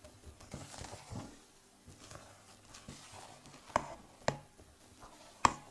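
Silicone spatula folding thick, airy chocolate sponge batter in a stainless steel bowl: soft, faint squishing strokes. Three sharp taps come in the second half, the last the loudest.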